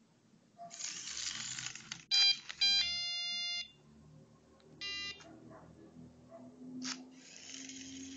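An Arduino-driven buzzer on a small robot sounding electronic tones: two short beeps, then a steady tone held for nearly a second, and another short beep about five seconds in. Before and after the beeps come stretches of whirring from the robot's small electric drive motors.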